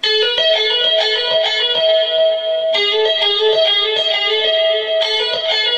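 Guitar tapping: a fast, steadily repeating run of ringing notes on one string. A tapped note is pulled off sideways to fretted notes below it. About three seconds in, the lower fretted note changes and the run carries on.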